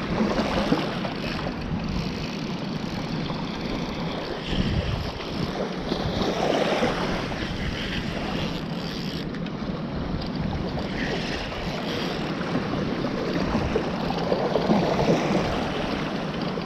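Steady wind noise buffeting the microphone over washing waves at the water's edge.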